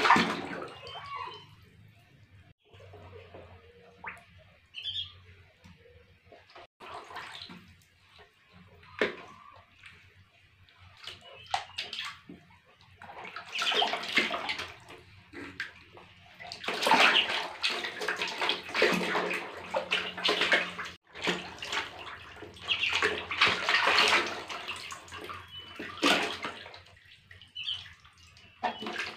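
Water splashing and sloshing in a plastic tub as a baby monkey and two ducklings paddle and thrash about. The splashing comes in irregular bursts, light at first and heaviest in the second half.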